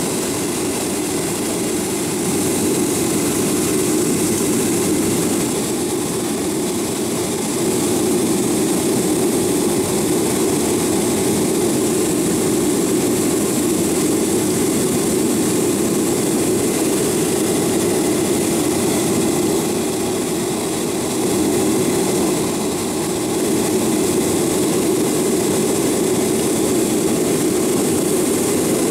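Boeing 737 jet engines and rushing air heard inside the passenger cabin during the climb after takeoff: a steady deep roar with a hiss over it, easing slightly in loudness twice.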